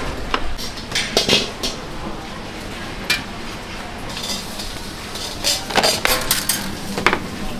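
Cookware and utensils clinking and knocking at irregular intervals while a food stall is set up. There is a cluster of sharp clinks a little before the end, and one more strike near the end.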